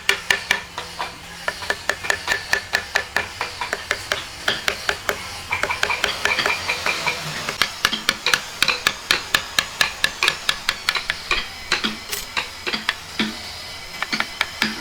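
A tool striking or working wood over and over, about three sharp strikes a second, with brief pauses.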